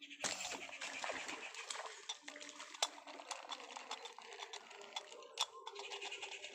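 A fishing slingshot is loosed at a fish in the pond: sharp snaps about three seconds in and again about five and a half seconds in, over a steady crackle and rustle of clicking.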